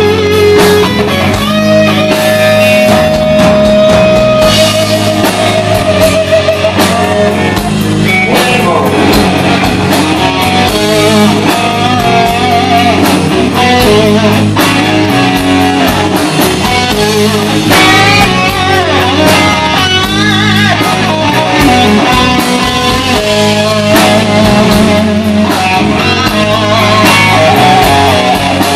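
Live rock band playing an instrumental passage: an electric guitar plays a slow lead of long held notes with wavering vibrato and bends, over bass guitar and a drum kit.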